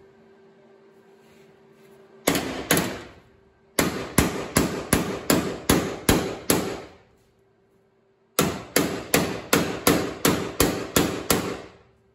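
Hammer blows on a sheet-steel patch panel, bending it into shape: two strikes, then two quick runs of about nine ringing metal blows each, roughly three a second, with a short pause between.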